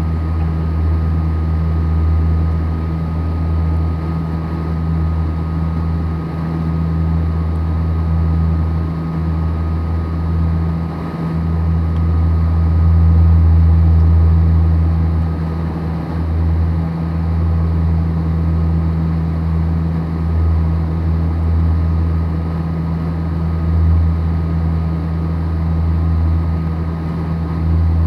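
Cabin drone of a Saab 340 in flight: its CT7 turboprop engines and propellers make a steady, deep hum with a thin steady whine above it, swelling a little about halfway through.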